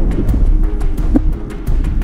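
Background music over a steady low rumble, with faint scattered clicks.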